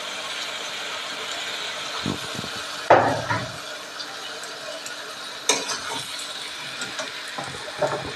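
Drumstick stems and potatoes sizzling in an aluminium kadai, with scattered clinks and knocks of a steel spatula and utensils against the pan, the sharpest knock about three seconds in.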